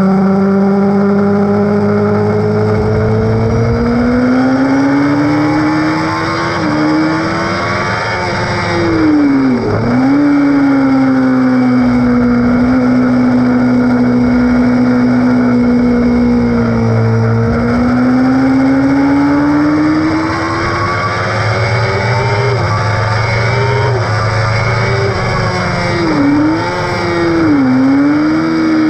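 Sport motorcycle engine at high revs on a racetrack, heard from on board over wind rush. The engine note climbs through the revs, holds steady through a long corner, climbs again, and drops in brief sharp dips at gear changes around ten seconds in and twice near the end.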